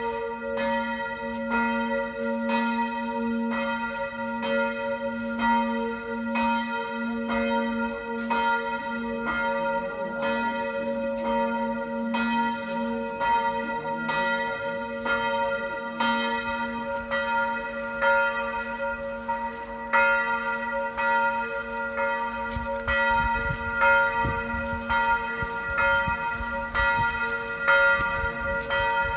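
A single church bell tolling at a steady pace, about three strokes every two seconds, its hum ringing on between strokes: a funeral toll as the procession walks behind the urn.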